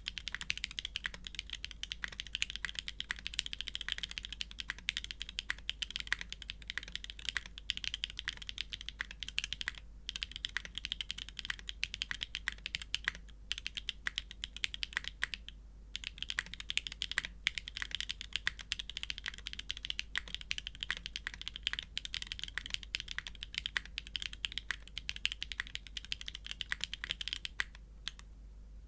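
Continuous fast typing on a Geon F1-8x v2 custom mechanical keyboard with an aluminium plate, O-ring mount and factory-lubed Franken switches (OP clear glass tops on Gateron Raw housings and stems) under GMK keycaps: a dense stream of keystroke clacks with a few brief pauses, stopping about a second before the end.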